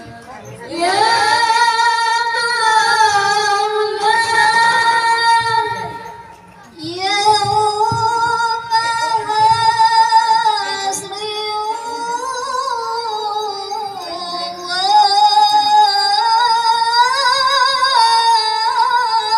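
A woman singing a slow, ornamented melody solo through a microphone, in long held phrases with a short break about six seconds in.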